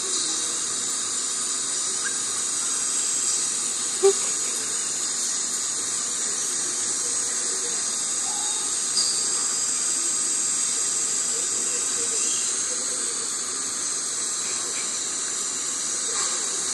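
Steady high hiss, with a light tap about four seconds in and a fainter one near nine seconds, the taps fitting a cat's paw striking a laptop screen.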